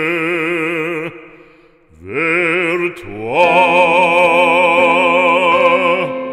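Background music with operatic singing: a voice holding long notes with a wide vibrato. One note fades about a second in, and after a short gap new notes come in and are held.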